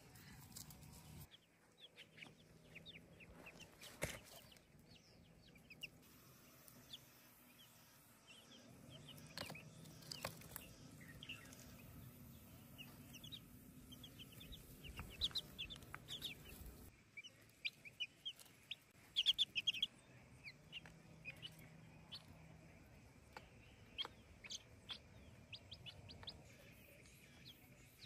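Young chicks peeping: many short, high chirps, scattered throughout, with louder clusters at times.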